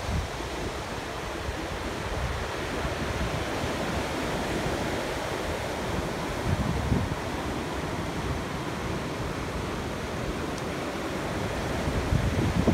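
Surf breaking and washing over a pebble beach: a steady rush of water that swells louder about halfway through and again near the end.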